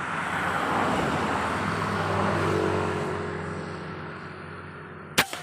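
A motor vehicle passing: a rush of noise with a low engine hum that swells and then fades away. One sharp crack comes near the end.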